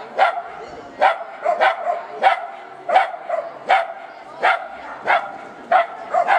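A dog barking in a steady, regular series, about ten barks, one every two-thirds of a second.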